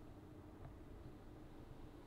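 Near silence: faint steady low hum of room tone.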